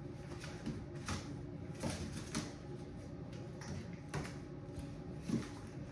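Irregular light knocks and clicks, a second or so apart, over a faint, busy background.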